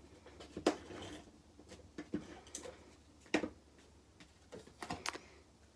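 Paper crafting by hand: a coloured cardstock layer being handled and set onto a card on the tabletop, making a few sharp, light taps and clicks.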